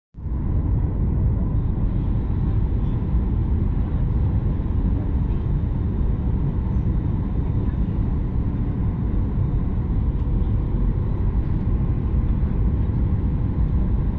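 Steady cabin noise inside a Boeing 737-800 beside the wing: the deep rumble of airflow and its CFM56-7B turbofan engines, with a faint steady hum over it.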